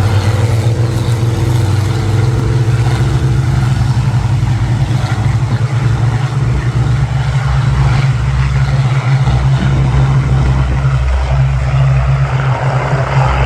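Massed Rolls-Royce Merlin piston engines of a formation of Spitfires and Hurricanes flying over, a heavy steady drone. A higher overtone layer fades away over the first few seconds.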